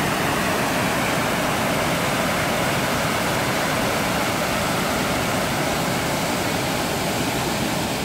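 Muddy floodwater rushing over a concrete weir and a rocky cascade in a stream swollen by heavy rain: a steady rush of fast water.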